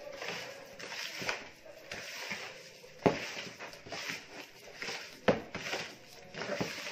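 Hand squeezing and rubbing soft butter with sugar in a mixing bowl, a soft uneven squelching, with two sharp knocks against the bowl about three and five seconds in.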